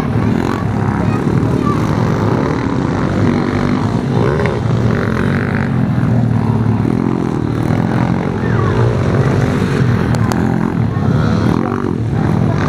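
Several small pit bike engines racing around a dirt track, their revs rising and falling as the bikes accelerate and ease off through the turns.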